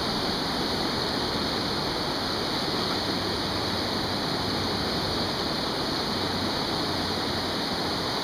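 Whitewater rapids rushing steadily, a constant roar of churning river water.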